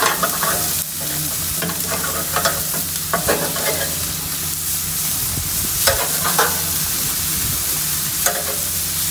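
Beef steaks sizzling on a hot barbecue grill grate, a steady hiss with occasional clicks of metal tongs as the steaks are turned.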